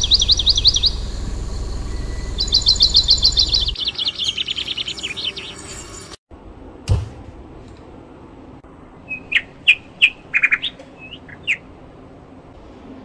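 Small birds singing: two fast, loud trills in the first few seconds over a low rumble, then a run of short chirps later on. A single sharp click comes about halfway through.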